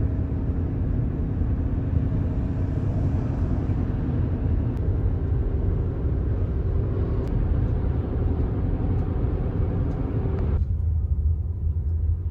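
Car cabin noise while driving: a steady low rumble of engine and road. About ten and a half seconds in, the higher hiss cuts out suddenly, leaving only the low rumble.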